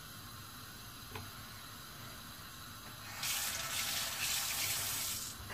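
Water running from a kitchen tap for about two seconds, then shut off, with a faint click about a second before it.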